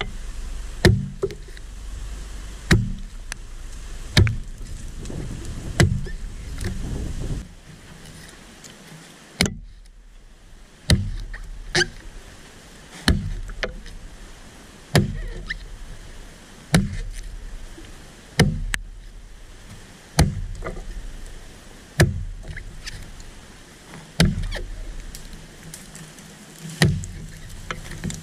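A restored vintage Evansville axe chopping into a small tree trunk: a steady run of sharp strikes on wood, one every second and a half to two seconds. About a third of the way in there is a pause of roughly three seconds.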